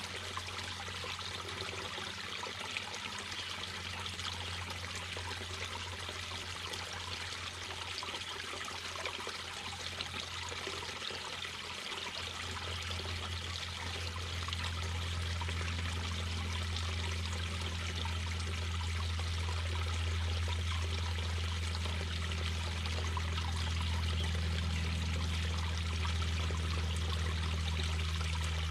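Mountain brook babbling steadily over stones, with a low rumble underneath that gets louder a little under halfway through.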